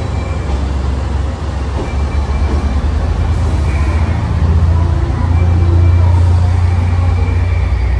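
JR 381 series electric limited express train pulling into a station platform: the low rumble of the cars rolling past, swelling about halfway through.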